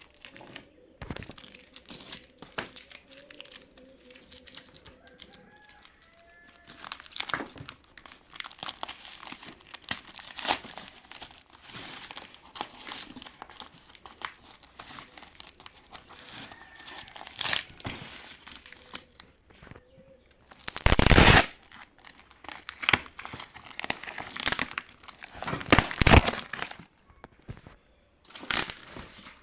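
Product packaging being handled and opened by hand: irregular crinkling and rustling, with one louder burst about two-thirds of the way through.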